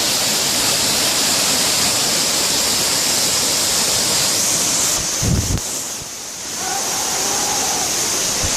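Waterfall water rushing in a steady, loud hiss, with a short low thump about five seconds in.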